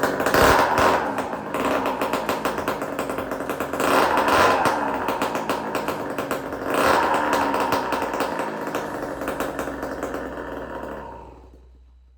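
1991 Honda CR80R's 80 cc single-cylinder two-stroke engine running and revved up three times, then fading out near the end.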